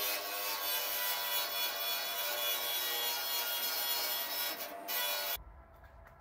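Angle grinder running with a steady whine while grinding; it stops abruptly near the end.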